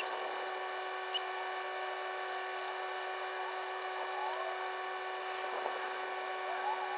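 A steady, high-pitched machine whine, like a small motor running, with a few faint short chirps and a couple of light clicks over it.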